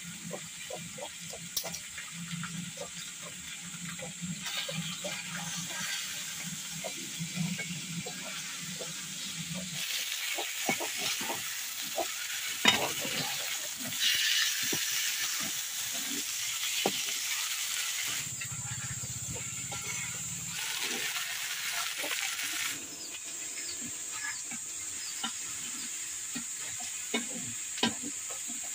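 Pieces of fish frying and sizzling in oil in a metal kadai over a wood fire, with a metal spatula clicking and scraping against the pan as they are stirred.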